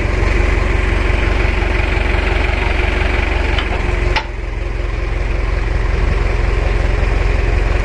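Heavy diesel engine of earthmoving machinery running steadily with a deep rumble. There is a sharp click and a brief drop in level about four seconds in.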